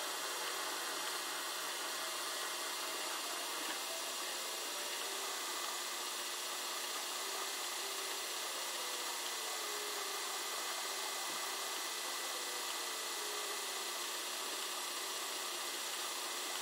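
Potter's wheel spinning with a steady, even whir while hands pull up the wet clay wall of a thrown vase.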